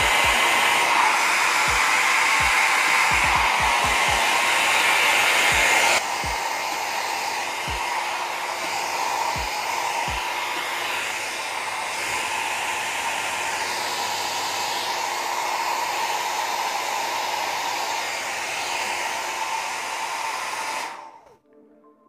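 NOVA NHP-8100 1200 W hair dryer running on its hot second setting: a steady blowing hiss with a motor whine, and a few low thumps in the first ten seconds. About six seconds in it drops to a quieter level, and it cuts off about a second before the end.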